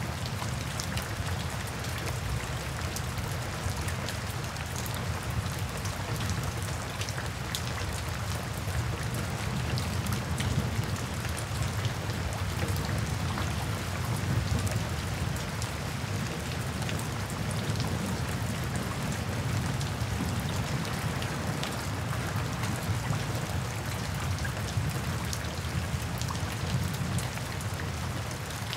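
Steady rain falling on wet pavement: an even hiss of rainfall full of small individual drop splashes, with a steady low rumble underneath.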